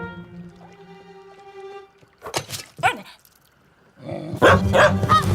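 A dog barking over soft background music, with a few short calls about two seconds in and louder barking near the end.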